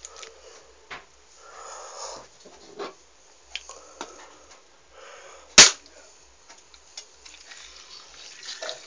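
Handling noises: scattered clicks and short stretches of rubbing or scrubbing, with one sharp, loud knock about five and a half seconds in.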